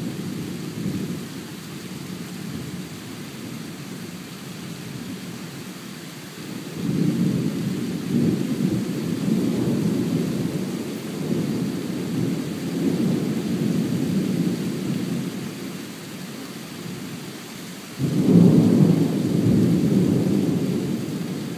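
Thunder rumbling in long rolls during a thunderstorm, swelling about a third of the way in and breaking into a sudden louder peal near the end, over a steady hiss of rain.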